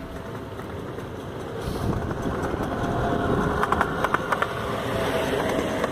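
Miniature ride-on railway train passing on the track close by, a rumble that grows louder as it nears, with a run of rapid clicks about three and a half seconds in.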